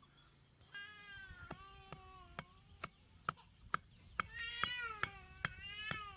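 Wooden stake being knocked into the soil with the flat of a machete blade: sharp knocks about two a second. Drawn-out, wavering high cries sound over the knocking several times.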